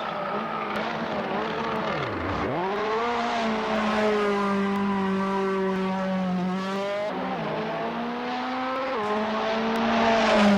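Race car engine running hard on a circuit. The revs drop sharply about two seconds in, climb back and hold, then fall and rise again twice, growing louder near the end.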